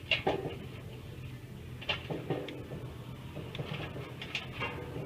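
A few scattered metal clanks and knocks, some ringing briefly, from steel being handled between welds.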